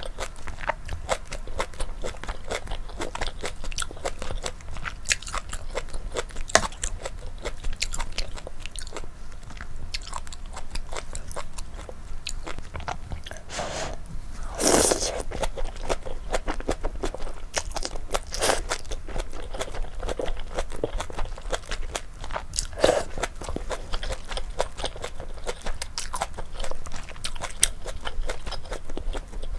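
Close-miked eating of spicy malatang with flat bunmoja noodles: steady wet chewing and biting, with a louder, longer noise about halfway through.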